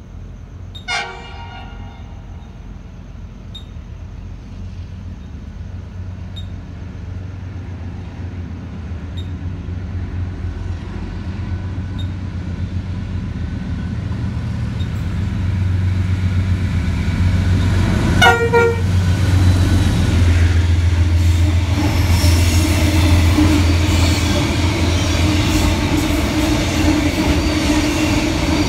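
Freight train approaching and passing: a low locomotive rumble grows steadily louder, with a short horn toot about a second in and a louder brief horn toot a little past halfway. In the last several seconds the wagons rattle and clatter past at full loudness.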